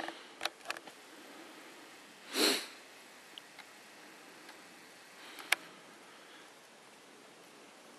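A single sniff about two and a half seconds in, over faint steady background hiss, with a few light clicks and one sharp click about five and a half seconds in.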